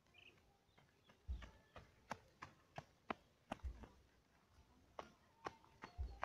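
Faint footsteps crunching on a dry dirt and grass path: a quick run of sharp clicks, roughly three a second, with a dull low thump about every two and a half seconds.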